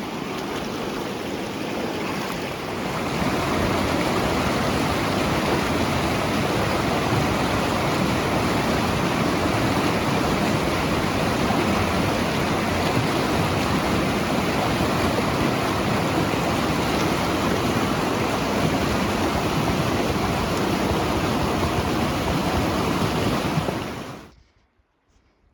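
Fast mountain river rushing in a loud, steady roar of water, louder from about three seconds in. It cuts off abruptly near the end.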